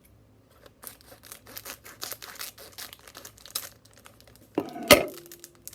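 Packaging of a Pokémon card product being torn and crinkled open by hand, in a run of quick crackles and rips, then a single sharp snap about five seconds in.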